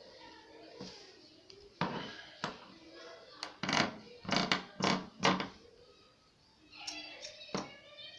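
Pink satin fabric being handled on a table and cut with scissors: rustling and a series of short, sharp snips.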